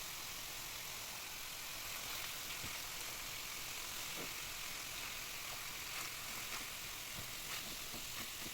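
Cabbage and turkey sizzling in a frying pan: a faint, steady sizzle with scattered small crackles.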